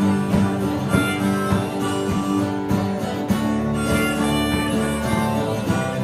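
Live band playing an instrumental passage: a harmonica held cupped against the vocal microphone plays long held notes over electric and acoustic guitars, bass guitar and drums.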